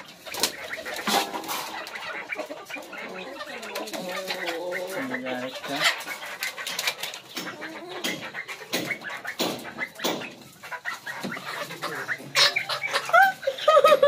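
Chickens clucking, with a louder call near the end. Underneath is the rustling and clicking of a plastic mesh bag being handled.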